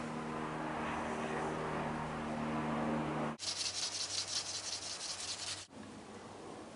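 A steady hum with several held tones, then, from about three and a half seconds in, about two seconds of fast, scratchy rubbing of a small hand tool worked against the statue's head, before it drops to a quieter background.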